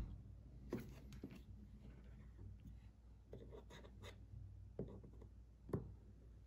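Faint, soft clicks and taps of fingers handling a sapphire screen protector and phone on a tabletop while the protector is lined up over the screen. The sharpest tap comes near the end.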